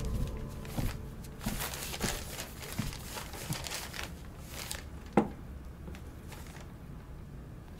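Paper rustling and crinkling as large sheets of paper are handled and unrolled, with one sharp knock about five seconds in.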